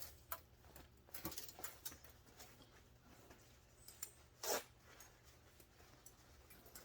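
A rag rubbing and wiping gunk off a chainsaw's coiled recoil starter spring: faint rustling and small clicks, with one louder short swish about four and a half seconds in.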